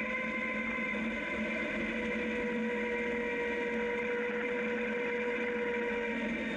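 Zero DSR electric motorcycle riding along a gravel road: a steady whine from the electric motor and belt drive over tyre and road noise. The lowest tone of the whine drops out near the end.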